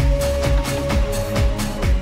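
Electronic dance music with a steady kick drum beating about twice a second.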